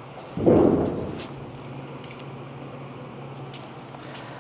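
A sudden dull thud about half a second in that fades over about a second, and another just at the end, over a steady low hum.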